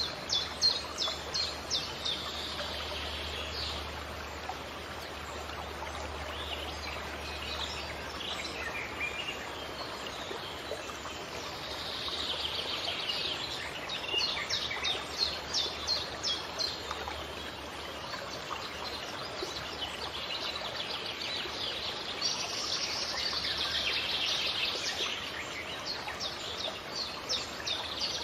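Birds singing in bouts of rapid chirping trills that return every several seconds, over a steady background rush of running water.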